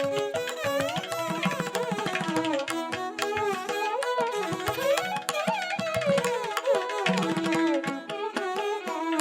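Background Indian classical instrumental music: a melodic line over a steady drone, with quick tabla-like drumming.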